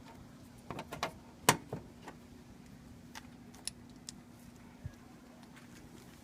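Plastic push-type body rivets being pried out of a car grille with a flathead screwdriver: a quick run of sharp clicks and snaps in the first two seconds, the loudest about a second and a half in, then a few lighter ticks. A faint steady hum sits underneath.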